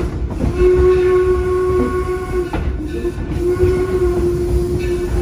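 Steam whistle of the 1873 Torch Lake locomotive blowing long blasts of about two seconds each with short gaps, over the low rumble and clacking of the train rolling along the track.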